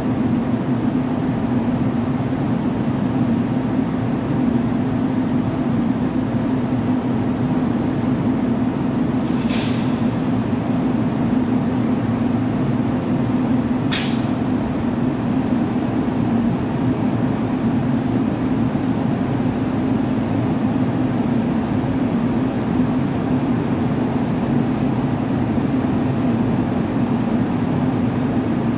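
Seoul Line 1 Korail electric train standing at the platform with its doors open, its onboard equipment giving a steady low hum. Two short hisses of released air from the brakes come about nine and a half and fourteen seconds in.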